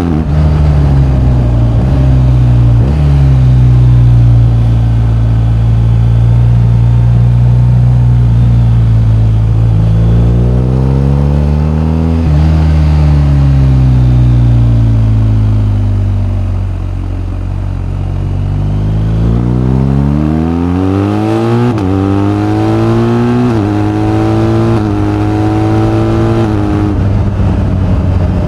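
BMW R1250GS's 1254 cc boxer twin running under way: it holds a steady pitch, revs up and eases off once, then accelerates through three upshifts in the last several seconds, the pitch climbing and dropping sharply at each shift.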